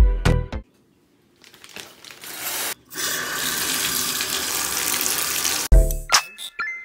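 Water turned on at a bathtub-shower's mixing valve, running in a steady rush that builds up over about a second and then cuts off suddenly near the end.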